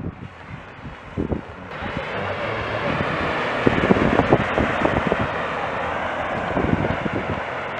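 Off-road 4x4 driving into and through a muddy water pit: its engine runs under the sound of water and mud splashing, which swells from about two seconds in and is loudest in the middle. Wind buffets the microphone.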